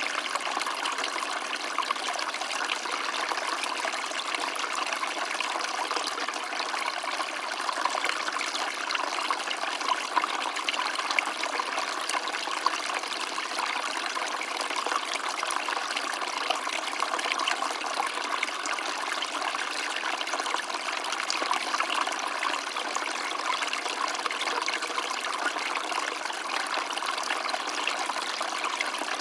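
A small stream of water running and trickling steadily, a continuous fine babble with no breaks or changes.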